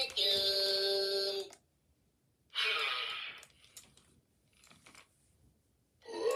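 Furby toys vocalizing in electronic voices: a held sung note ends about a second and a half in, a short hissy burst comes about a second later, and a new voice rising in pitch starts near the end.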